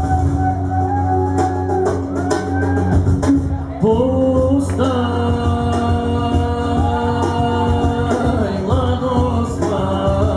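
Live band music: a pitched melody line, sung or played, gliding and bending over a steady low drone, with drum hits.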